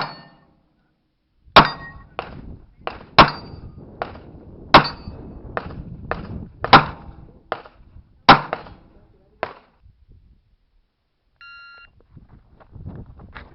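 Revolver gunshots fired in a rapid string during an IPSC revolver stage: about sixteen sharp reports over nine seconds, the loudest coming roughly every second and a half. A short electronic beep sounds about two seconds after the last shot.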